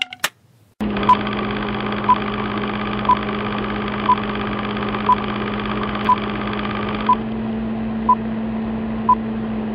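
Film-countdown leader sound effect: a steady hum with crackle, with a short high beep once a second, nine beeps in a row.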